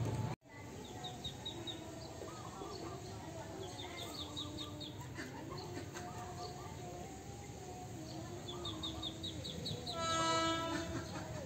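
Small birds chirping in repeated quick series, then near the end a single horn blast of about a second from an approaching KRL Commuter Line electric train, still out of sight down the track. The audio cuts out briefly about half a second in.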